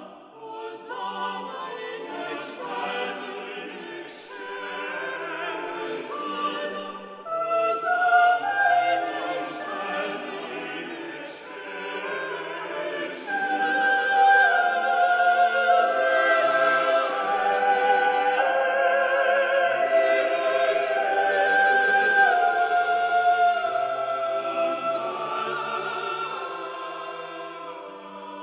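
Mixed choir of men's and women's voices singing together, swelling louder about halfway through and easing off somewhat near the end.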